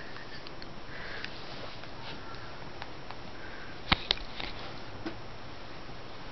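A baby making short, soft sniffing noises, with two sharp clicks about four seconds in.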